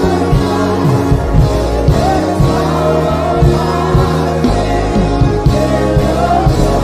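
Live gospel worship band playing a steady groove on drums, bass guitar, keyboards and electric guitar, with some singing over it.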